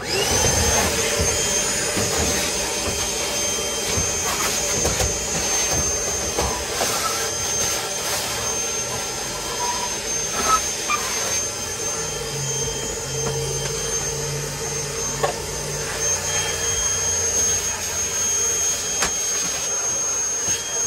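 Milwaukee cordless lunchbox shop vac switching on and spinning up to a steady high whine, then running as the nozzle sucks at the floor, with a few sharp clicks along the way.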